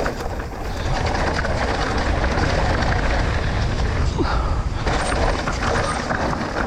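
Mountain bike riding fast down a dirt trail: wind buffeting the microphone and knobby tyres rumbling over the ground, with the bike rattling over bumps.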